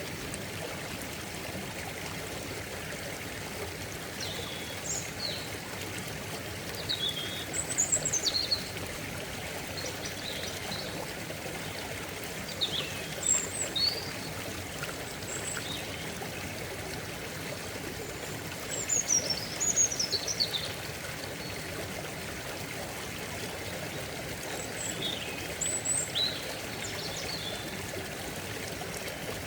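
Steady rushing and trickling of a stream, with small birds chirping in short high bursts several times over it.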